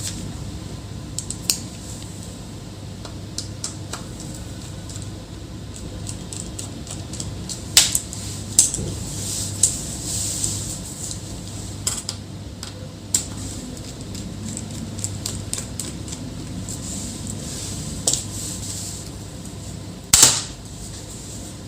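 Scattered small clicks and metallic taps from a screwdriver and tiny screws being taken out of an Asus ZenBook UX430 laptop's bottom cover, over a steady low hum. A sharper knock comes near the end.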